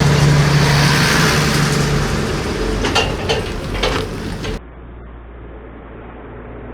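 Harvest machinery running: a steady engine hum under a loud rushing noise, with a few sharp knocks. About four and a half seconds in it cuts abruptly to a quieter, muffled machine drone.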